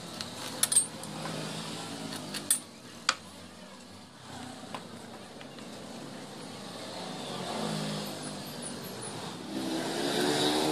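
Several sharp clicks and knocks of hand tools being handled on a wooden jig: a steel ruler, a pencil and a circular saw being set down, none of them running. Behind them is the steady sound of a motor vehicle engine, which grows louder near the end.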